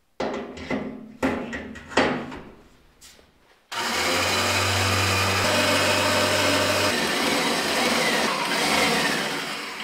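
Steel ramp plate of a homemade scissor-lift motorcycle table clanking a few times as it is set down, then a steady machine noise with a low hum for about six seconds while the lift table lowers, fading away near the end.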